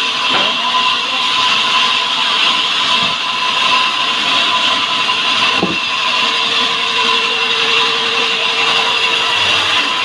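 Sawmill band saw running steadily with its blade cutting through a log of salam hardwood: a steady high-pitched whine over the sawing noise, with a single knock a little past halfway.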